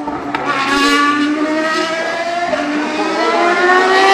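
Racing car engine running hard on track, its pitch climbing in the second half, with a short sharp click about a third of a second in.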